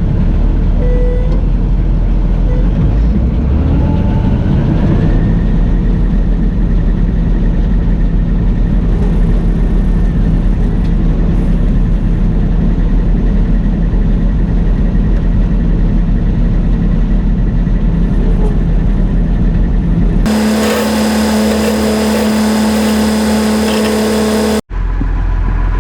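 Farm machinery engine running at steady load, its pitch climbing over a couple of seconds early on and then holding. About twenty seconds in, it gives way abruptly to a different, higher machine hum with hiss for about four seconds. After a brief dropout the first engine sound returns.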